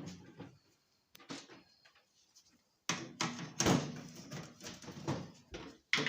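Sheet-metal outer casing of a microwave being pulled off. After a quiet stretch, a run of loud clunks and metal knocks starts about halfway through.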